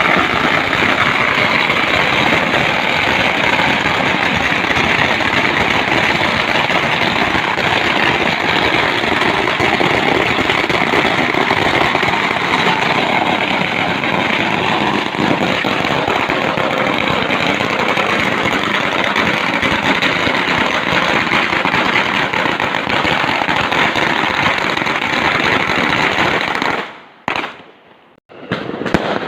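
Fireworks crackling in a dense, near-continuous din with no separate bangs standing out. The sound cuts out suddenly near the end for about two seconds, then comes back.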